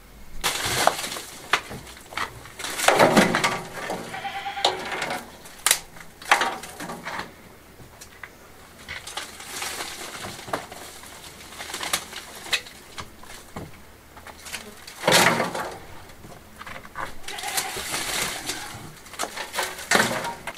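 Rubble, old cane and broken plaster being pulled out by hand and dropped into a metal wheelbarrow: irregular knocks and clattering throughout, with a few animal calls mixed in.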